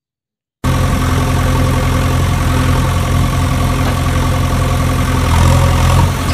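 Steady, loud engine running sound like an idling diesel machine, cutting in abruptly after half a second of silence.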